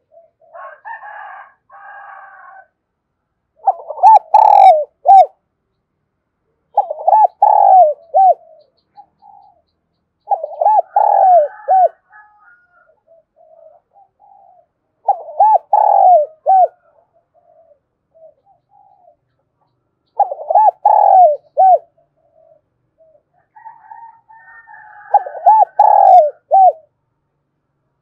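Caged decoy spotted dove cooing its call. There are six phrases of three or four coos each, coming every three to five seconds.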